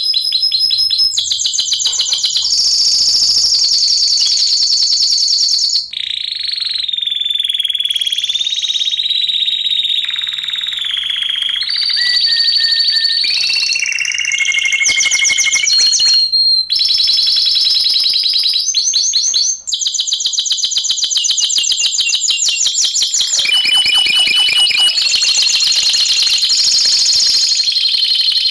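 Spanish timbrado canaries singing: a long, continuous song of fast rolling trills and held whistled notes, switching to a new phrase every second or two, with a few short pauses.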